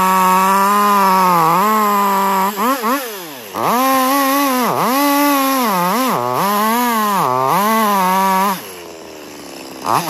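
Two-stroke chainsaw cutting through a coconut palm trunk: it runs at full throttle, is blipped twice, then bogs down and recovers again and again as the chain bites into the wood. It drops to idle about a second and a half before the end and revs up again at the very end.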